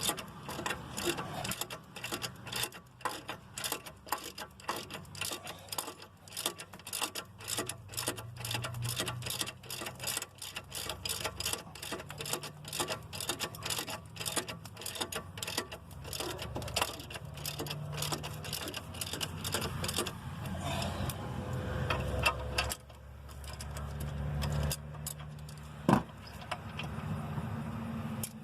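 Hand ratchet clicking rapidly as the brake caliper mount bracket bolts are run in and snugged up, with a single sharp metallic click near the end.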